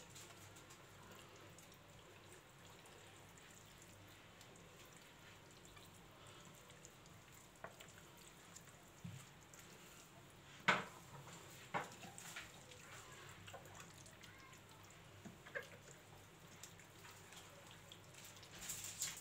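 Faint wet rubbing of hands working a grated-onion and spice marinade into a raw duck's skin, with a few scattered sharp taps, the loudest about eleven seconds in.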